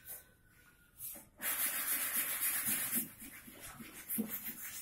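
Abrasive rasping of sandpaper rubbed by hand on a wooden chair. It starts about a second in, is loudest for a second or so, then goes on more softly in repeated strokes.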